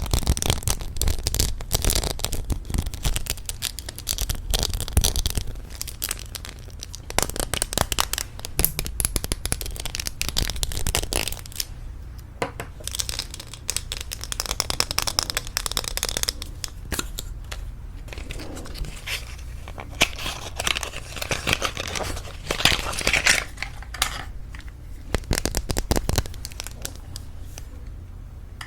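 Lipstick tapping: rapid, irregular taps and clicks on lipstick cases, with handling noise between them and a few short pauses.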